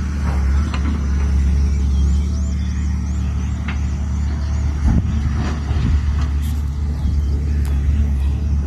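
Excavator's diesel engine running steadily, a continuous low drone.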